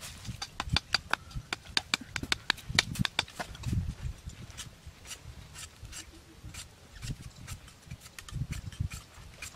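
Machete blade cutting and shaving a thin bamboo stick: a quick run of sharp wooden clicks and scrapes that thins out after about four seconds, with dull thumps in between.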